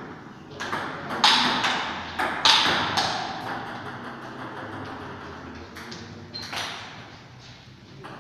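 Table tennis rally: the celluloid ball clicking off rubber-faced paddles and bouncing on the table, a quick string of sharp clicks over the first three seconds with a couple more about six seconds in. Each click rings briefly in the small hard-walled room.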